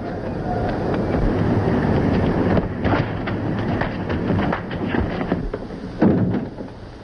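Scuffling and a quick series of sharp knocks from a fistfight, over a steady rushing noise. A louder thud comes about six seconds in.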